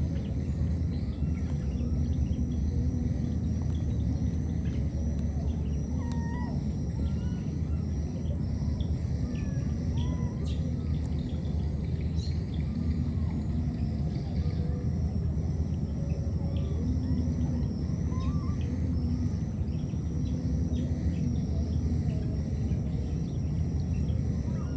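Outdoor wetland ambience: a steady low rumble under a high insect chorus that pulses in a regular repeat about once a second, with scattered short chirps and whistles.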